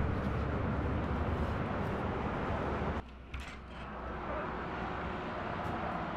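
Steady outdoor rumble of traffic and open air that cuts off abruptly about three seconds in to a quieter room, where a door latch clicks and the door opens, the background noise swelling back in.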